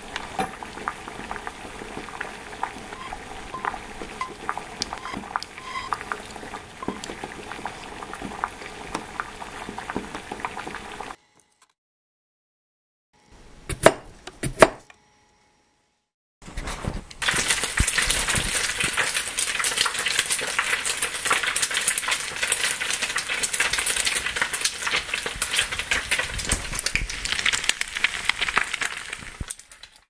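Dubbed-in cooking sound effects: a pot of liquid bubbling with small pops, then silence and two sharp knife chops on a cutting board. After a short pause comes the loud, dense crackle of potatoes deep-frying in oil, which stops at the end.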